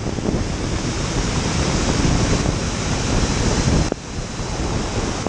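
Wind buffeting a car-mounted camera's microphone as the car drives down the drag strip, a loud steady rush with road and tyre noise under it. The rush drops off briefly about four seconds in.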